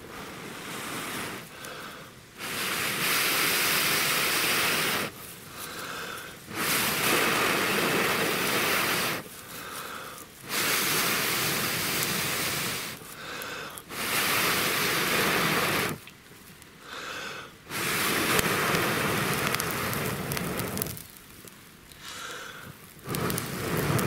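A person blowing hard into a smouldering dry-grass tinder bundle to bring the ember up to flame, in long blows about every three to four seconds with breaths drawn in between.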